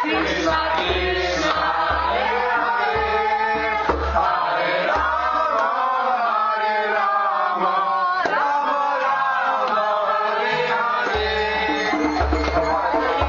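Devotional chanting (kirtan), sung over instrumental accompaniment with a low drum beat that drops out for several seconds in the middle and returns near the end.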